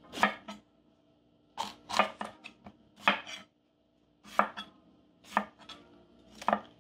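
Chef's knife slicing through a red bell pepper and knocking on a wooden cutting board: about a dozen sharp cuts in small uneven groups with short pauses between.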